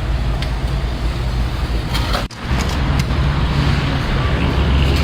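Steady low rumble of road traffic and vehicle engines on a busy street, briefly cutting out a little over two seconds in.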